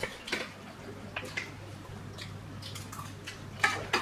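Spoons and forks clinking and scraping on dinner plates in scattered light clicks, with a louder cluster near the end, over a steady low hum.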